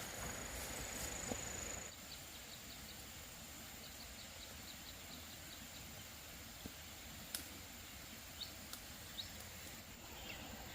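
Faint rural outdoor ambience: a steady high insect whine that stops about two seconds in, then runs of quick, evenly spaced high chirps and a few scattered sharp clicks.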